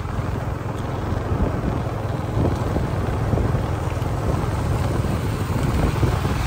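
Small motorcycle riding along a road: steady low engine drone mixed with wind buffeting the microphone.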